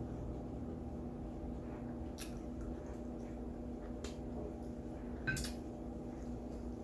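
A person eating: quiet chewing with a few sharp clicks of cutlery on a plate, the loudest just past five seconds in. A steady low hum runs underneath.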